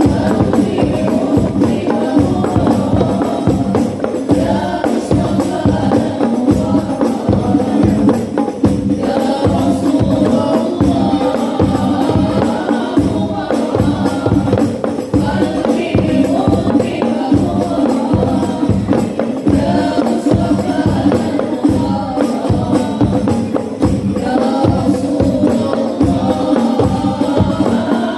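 Group singing an Islamic devotional song (sholawat) over hand-struck frame drums of the rebana type, which keep a dense, steady beat.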